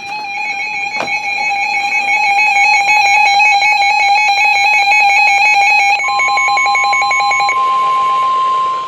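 Music with a held high note plays and stops near the end. About six seconds in, NOAA Weather Radio's 1050 Hz warning alarm tone starts: one steady, unbroken high tone that signals a warning broadcast is about to follow.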